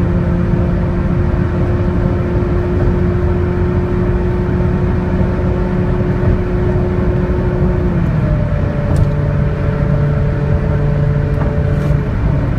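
Toyota Vios's 1.5-litre 2NR engine with an aftermarket exhaust running hard at high revs near 200 km/h, heard from inside the cabin over heavy wind and road noise. About eight seconds in, the engine note drops a step in pitch as the CVT shifts up from its sixth to its seventh step.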